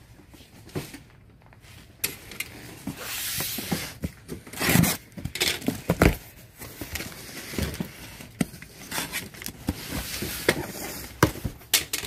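Cardboard shipping box being handled and opened: several knocks and thumps against the box, the loudest two about five and six seconds in, then cardboard flaps pulled open and crumpled packing paper rustling inside.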